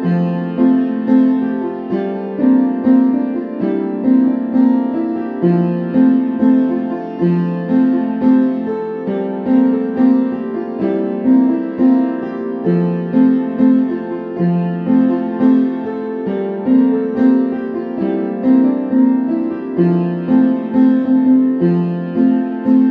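Piano music: a gentle, repeating figure of notes at an even pace, with no singing.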